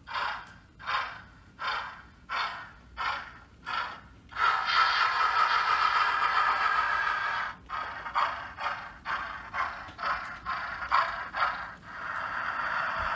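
Sound-fitted model steam locomotive's small speaker playing exhaust chuffs, about one and a half a second, with no bass. A steady steam hiss takes over for about three seconds, the chuffs come back a little quicker, and the hiss returns near the end.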